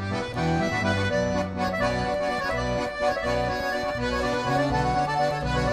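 Background music: sustained chords over a bass line that changes note every half second or so.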